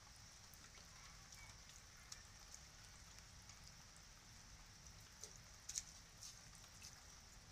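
Faint light rain, a steady soft hiss with scattered drops ticking, one sharper tick near six seconds in.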